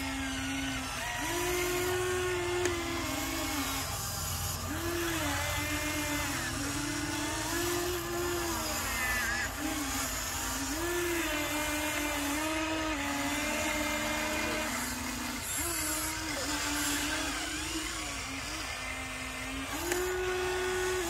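Huina RC excavators' electric motors whining as they work the boom, arm and bucket, the pitch stepping up and down as each motor starts, changes speed and stops.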